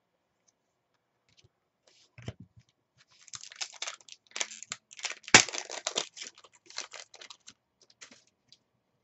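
A trading card pack wrapper being torn open and crinkled: a soft knock about two seconds in, then a fast run of crackles for about five seconds, with one sharp snap in the middle.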